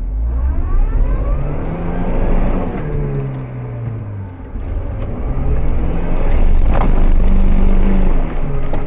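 Chevrolet Niva engine revving hard under load, rising in pitch, easing off, then climbing and holding high before dropping near the end, as the stuck SUV strains to drive out.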